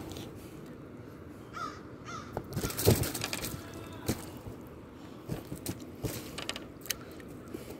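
A bird calling outdoors, with short calls about one and a half and two seconds in, over scattered clicks and knocks of handling gear in the kayak, the loudest a thump about three seconds in.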